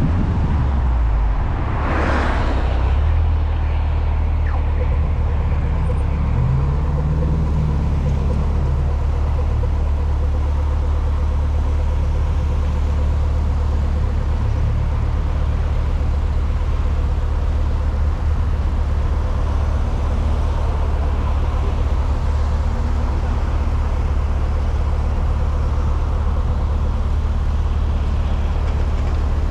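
Volkswagen Mk6 Golf R's turbocharged 2.0-litre four-cylinder engine running on the move, a steady low drone. About two seconds in there is a short rush of air, and the engine note rises around six to eight seconds in.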